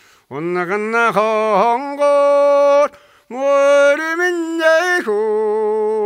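An elderly man singing a Mongolian song unaccompanied, in phrases with two long held notes and short breaths between them.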